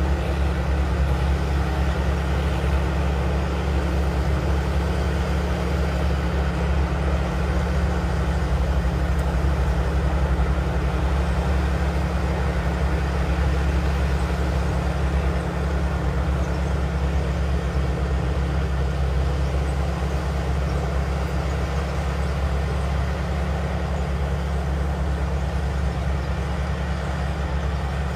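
Combine harvester's diesel engine and machinery running steadily, a low, even drone with no change in speed.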